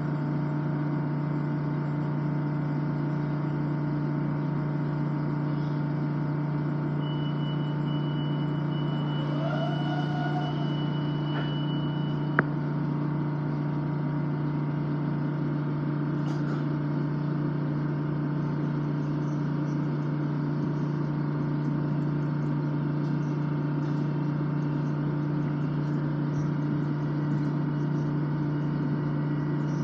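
Steady interior drone of an LIRR M7 electric commuter car, a constant low hum that holds even throughout, with a faint high tone for a few seconds midway and one short click.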